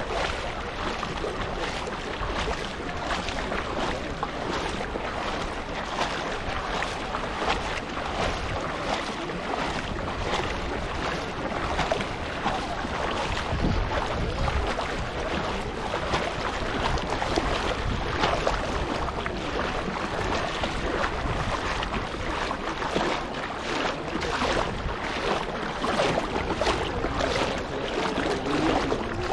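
Shallow seawater lapping and splashing close to the microphone, a steady wash broken by many small irregular splashes, with wind buffeting the microphone.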